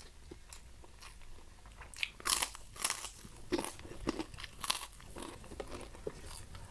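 A white kerupuk cracker being bitten and chewed close to the microphone. Loud crisp crunches start about two seconds in and go on as a string of crunching chews that thin out toward the end.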